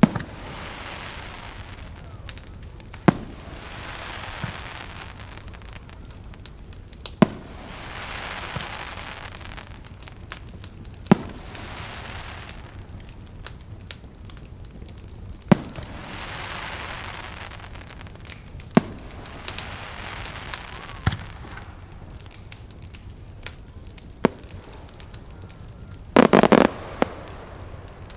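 Slow, heavy steps wading through deep snow: a crunching swish every few seconds with sharp cracks between, and a louder crunch near the end.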